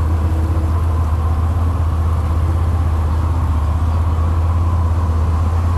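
Quad bike (ATV) engine running steadily, a deep even drone, as it rolls slowly over a wet, muddy road.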